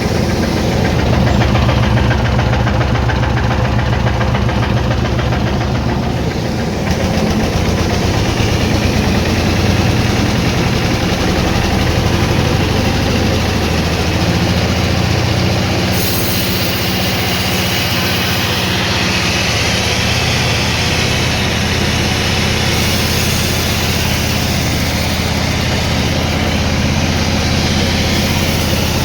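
Sawmill machinery running: a loud, steady mechanical drone with a fast pulsing to it, changing slightly in tone a few times.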